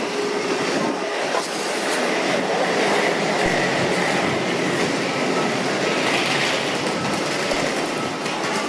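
Small hard wheels of a wheeled carry-on suitcase rolling and rattling steadily over a hard floor as it is pulled along at walking pace.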